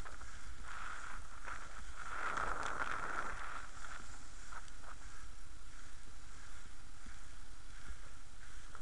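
Inline skate wheels rolling on wet asphalt and wind on an action camera carried by a racing skater: a steady hiss over a low rumble, with occasional clicks of skating strides.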